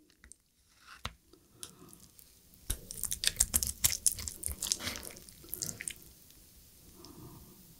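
Wet, sticky clicking and squelching of spicy-sauced lobster meat and melted cheese being pulled apart on the tray, thickest from about three to six seconds in and sparse before and after.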